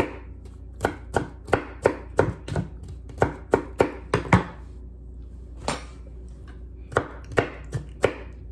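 A kitchen knife chopping a celery stalk on a cutting board: quick knocks about three a second, a pause, then a few more strokes near the end.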